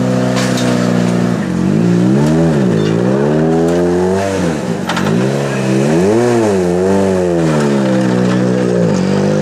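Rally car engine running hard. Its pitch holds steady at first, then drops and climbs again several times as the revs fall and rise, and evens out near the end.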